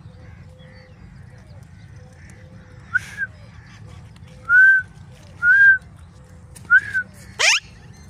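Alexandrine parakeet giving short whistled calls, a burst of several notes from about three seconds in, then a loud, fast rising whistle near the end.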